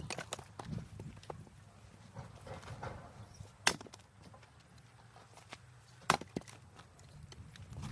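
Firewood being chopped: three sharp wooden strikes a few seconds apart, the last the loudest, with lighter knocks and clatter of wood between.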